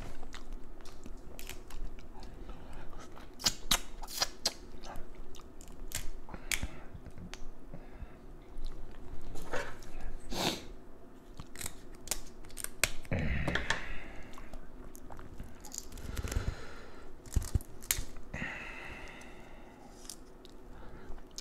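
Close-up sounds of a person eating Dungeness crab: chewing and crunching, with many sharp clicks and cracks scattered throughout and a few longer wet bursts.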